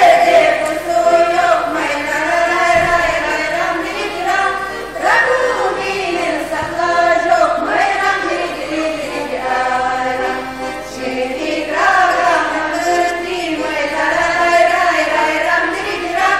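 A women's folk vocal ensemble singing a folk song together, several voices in chorus, in long phrases that swell and fall back every few seconds.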